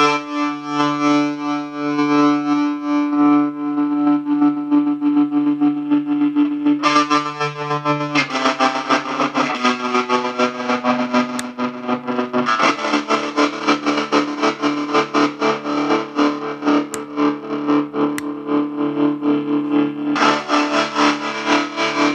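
Electric guitar played through the Unreachable Void pedal's distortion, tremolo and reverb: held distorted chords that pulse quickly in volume, changing every few seconds.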